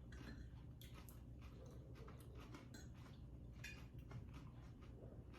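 Faint chewing, with irregular light clicks of cutlery.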